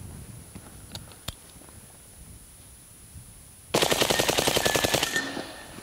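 Suppressed full-auto AR-15 in 300 Blackout firing one continuous burst, a fast, even stream of shots lasting about a second and a half, starting nearly four seconds in.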